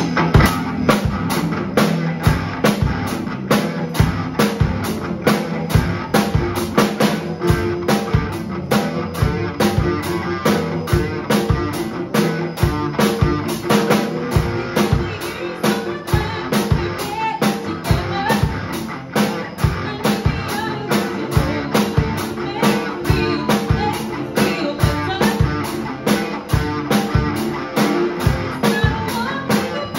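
Acoustic drum kit played with sticks in a steady, driving rock beat, along with a recorded pop-punk backing track with electric guitars.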